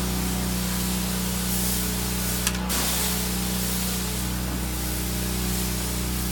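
Pressure washer spraying: a steady hiss of water over an even low hum, with one short sharp click about two and a half seconds in.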